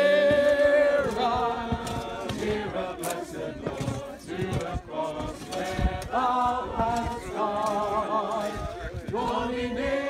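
A group of mourners singing a hymn together without accompaniment, holding long notes that change every second or so.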